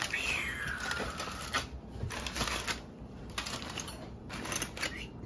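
Aluminium foil crinkling in several short bursts as it is pulled open around a baked salmon, after a brief falling tone at the start.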